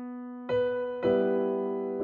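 Background piano music: a held note fading, then fresh chords struck about half a second and a second in.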